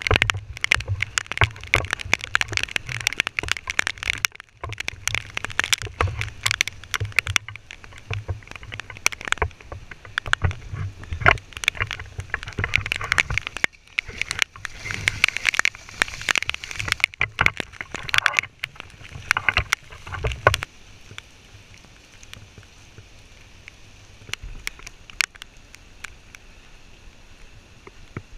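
Rain with splashing water and many close taps and knocks, busy for about the first twenty seconds, then settling to a quieter steady rain hiss with only a few taps.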